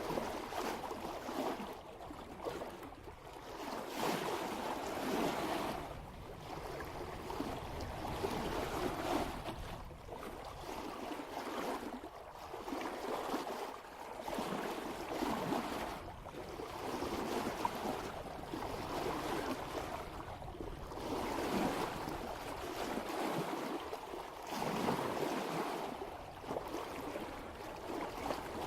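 Water rushing and splashing along the bow of a sailboat moving at about 3 knots, swelling and easing every couple of seconds as the hull meets each swell.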